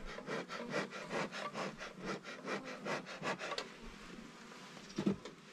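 Beekeeper's bellows smoker pumped in quick, even strokes, about five puffs a second, to calm the bees with smoke. The strokes stop about three and a half seconds in, and a short knock follows near the end.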